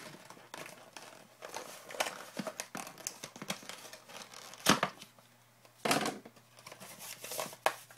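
Cardboard trading-card hobby box being torn apart by hand: a run of short, irregular rips and crinkles, with a few louder tears about halfway through and near the end.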